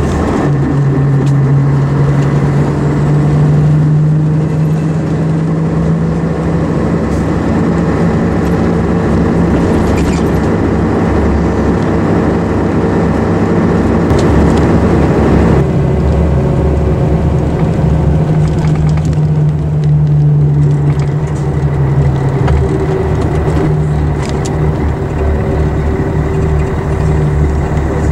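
Diesel engine of an Ikarus EAG 395 coach on a Scania chassis, running steadily under way as a continuous low drone with road noise, heard from inside the bus. About halfway through, the higher noise drops away while the engine drone carries on, as when the driver eases off or changes gear.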